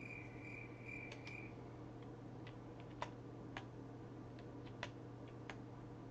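Faint, irregular computer keyboard clicks, about a dozen sharp taps, over a steady low electrical hum. A faint high chirping, pulsing about two and a half times a second, stops about a second and a half in.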